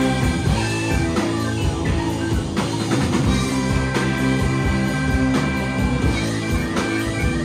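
Live rock-and-roll band playing loud: electric guitar and drum kit driving a steady beat, with tenor and baritone saxophones.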